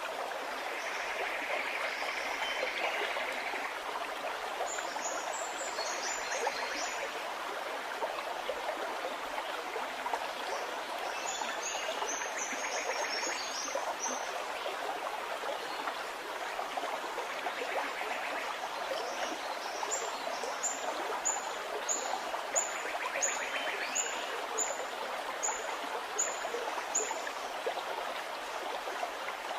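A stream gurgling steadily, with a bird singing high, thin notes over it: short quick clusters about five and eleven seconds in, and a slow series of about ten evenly spaced notes from about twenty seconds in.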